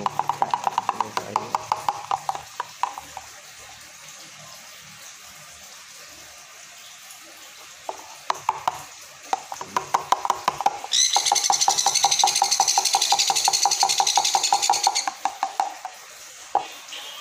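A spoon stirring cereal baby-bird feed in a plastic container, knocking against the sides in quick, rhythmic clicks that pause for a few seconds and then start again. For about four seconds in the second half, a loud, harsh, higher rasp sounds over the clicking.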